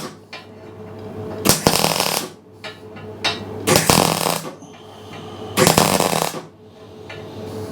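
MIG welder laying three short welds, each a burst of crackling arc about two-thirds of a second long, while filling a hole in the steel forge plate. A steady electrical hum runs underneath.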